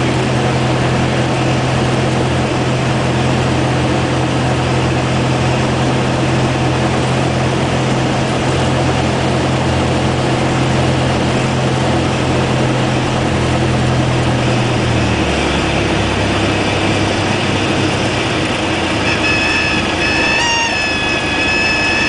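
Cabin noise of a single-engine propeller plane landing: the engine and propeller drone steadily, then the pitch drops sharply about 15 seconds in as power comes back to idle. From about 19 seconds a high, wavering stall warning horn sounds through the flare to touchdown.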